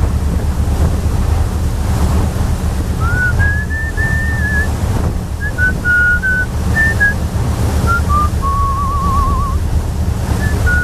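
A person whistling a tune, starting about three seconds in with held and sliding notes and a warbling trill later on. Under it runs the steady low rumble of a moving boat, with wind on the microphone.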